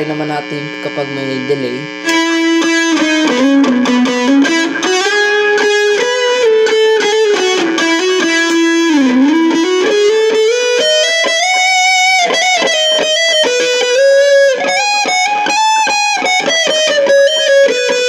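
Overdriven electric guitar through a Vox Satchurator distortion pedal with its More switch on, boosted by a Caline Clear Boost. It holds a chord for about two seconds, then plays a sustained single-note lead line with string bends, climbing higher past the middle.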